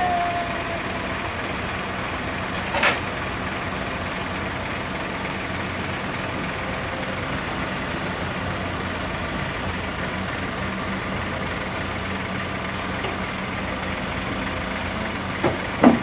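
Heavy diesel engine idling steadily, with a brief falling squeal at the start, a sharp knock about three seconds in and a couple more knocks near the end.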